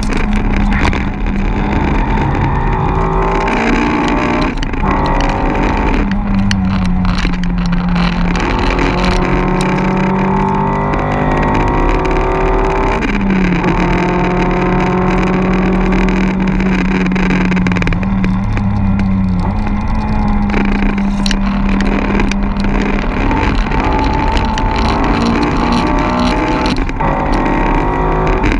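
Car engine heard from inside the cabin while lapping a race circuit, climbing in pitch as it accelerates through the gears and dropping back at each upshift several times, over constant road and wind noise.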